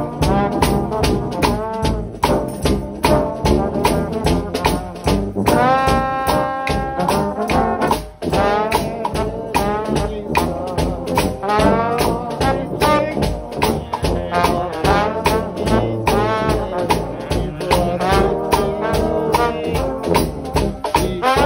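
Trombone-led gospel shout band playing: several trombones with a trumpet and a low brass horn over a steady drum beat and a shaken tambourine. A chord is held for a couple of seconds about a quarter of the way in, followed by a very short break before the band plays on.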